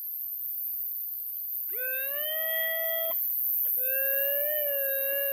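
Metal detector giving a target tone over a buried object. A short tone rises into a steady pitch about two seconds in, then after a brief gap a longer tone sounds that wavers slightly in pitch.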